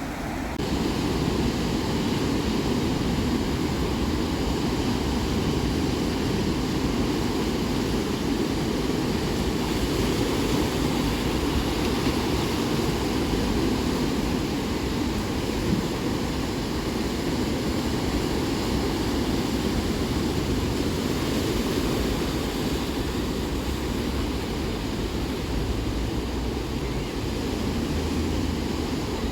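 Ocean surf: a steady, continuous rush of breaking waves.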